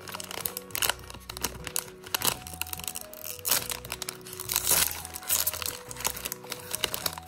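A crinkly plastic-foil Pikmi Pops Surprise bag being torn open and handled, with irregular sharp crackles throughout. Background music with steady tones plays underneath.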